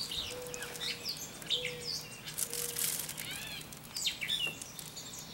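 Birds chirping and calling, short high chirps scattered throughout, with a few short clicks.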